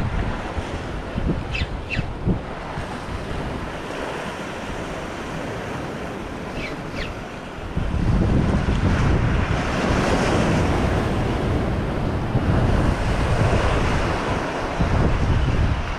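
Sea waves breaking and washing over the rocks of a jetty, with wind buffeting the microphone, heavier from about halfway through.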